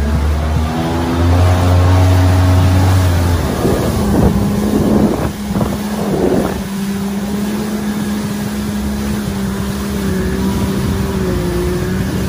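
Watercraft engines running steadily at speed, a jet ski's among them, over the rush of water spray and wind on the microphone. A heavy low rumble fades after about three seconds, and a few loud splashes come about four to six seconds in.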